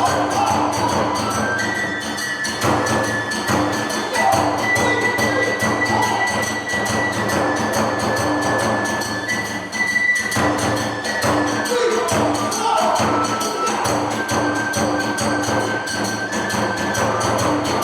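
Kagura music: a bamboo kagura flute holding long high notes over steady drum strokes and the jangle of small hand cymbals.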